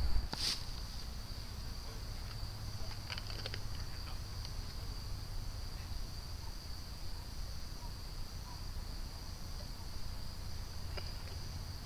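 Steady high-pitched insect chorus, with a low rumble of distant road traffic beneath it and a few light clicks.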